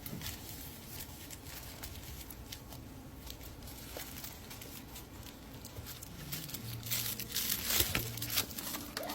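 Tissue paper and bubble wrap crinkling and rustling irregularly as a potted plant is unwrapped by hand, getting busier near the end.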